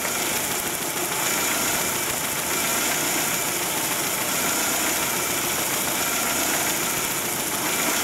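2000 Dodge Neon four-cylinder engine idling steadily with cylinder three's plug wire pulled off the coil. This is a cylinder drop test, listening for the rpm change to judge each cylinder's contribution on an engine with a cylinder-one misfire.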